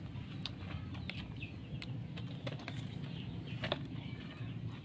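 Scattered light clicks and scrabbling of kittens moving about in a plastic laundry basket, over a steady low rumble.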